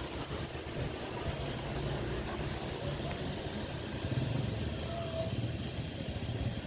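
Strong gusty wind buffeting the microphone over a steady low rumble.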